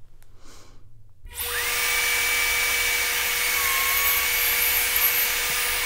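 Bosch plunge router switched on about a second in, spinning up to a steady high whine. It runs while plunging all the way through the solid-wood backsplat at the centre of each inlay-pocket opening, boring registration holes through the template.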